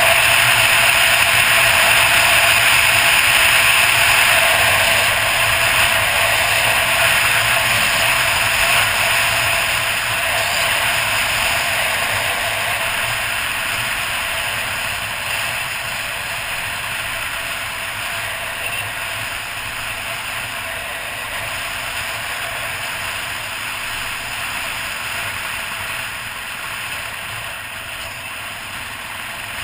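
Suzuki DR800 Big's single-cylinder engine running at road speed, with wind and road noise rushing over the bike-mounted camera's microphone. The whole sound grows gradually quieter through the stretch.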